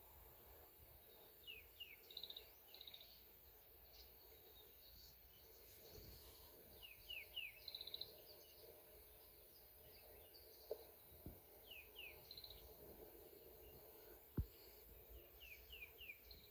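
Birds calling over quiet outdoor ambience: short falling chirps in quick groups of two or three, repeated several times, with some higher notes between. A single sharp click sounds near the end.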